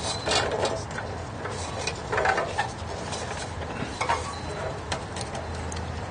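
Fingers tightening a nut inside a metal-and-glass outdoor wall lantern: short clusters of light scrapes and clinks against the fixture's frame and glass panels, coming in four or five bursts.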